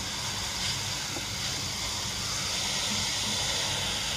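Steady hiss of rain starting to fall in a hurricane's outer bands, growing slightly louder.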